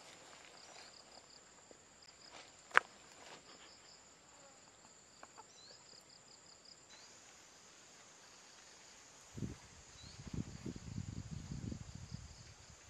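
Insects chirp in a quick rhythmic series over a faint steady high drone. A single sharp click comes a little under three seconds in. From about nine seconds on, low rustling and crackling noise starts up, louder than the insects.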